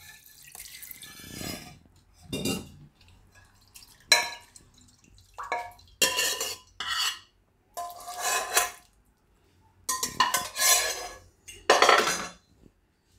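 Water poured from a steel vessel into a steel pressure cooker for the first couple of seconds, then about half a dozen short bursts of steel utensils clanking and scraping as the dal-and-water is tipped from the cooker into the pan and stirred with a ladle.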